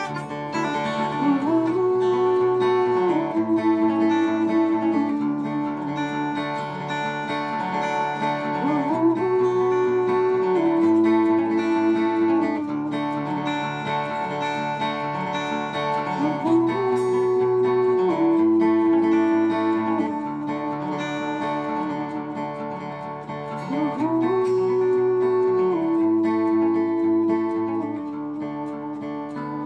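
Solo steel-string dreadnought acoustic guitar playing an instrumental passage with no singing. It cycles through the same chord phrase about every seven and a half seconds, each cycle opening with a note that slides up in pitch, and it eases off a little near the end.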